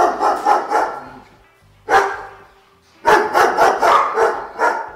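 Dog barking in quick runs: a rapid string of barks, a single bark about two seconds in, then another rapid string from about three seconds in.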